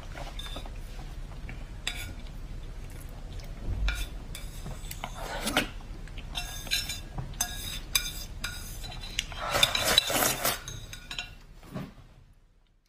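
Chopsticks clicking and scraping against a ceramic plate while noodles and sauce are slurped and eaten from it, in short scattered clicks.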